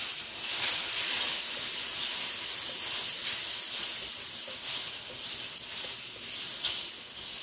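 Sliced baby portobello mushrooms caramelizing in teriyaki sauce, sizzling with a steady high hiss in a hot frying pan as they are stirred with wooden spatulas; the moisture is mostly cooked off. The sizzle swells about half a second in and eases slowly toward the end.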